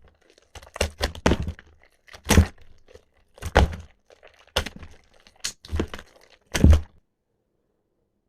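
Soft, water-soaked soap being crushed and squeezed, giving a run of about eight crunchy squishes that stop about seven seconds in.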